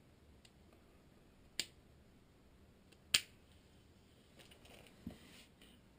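Two sharp clicks about a second and a half apart, then a few faint ticks, as a Daiwa Ryoga baitcasting reel is handled.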